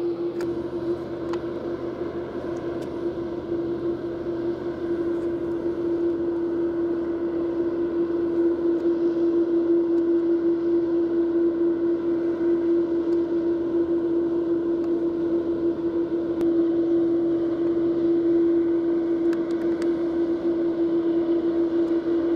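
Boeing 787 Dreamliner's jet engines running at taxi power: a steady droning whine over a rushing noise, growing somewhat louder over the first several seconds.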